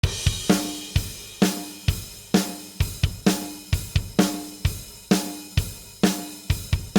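Drum kit playing a steady rock beat alone, with kick drum, snare and cymbals, as the intro to a song.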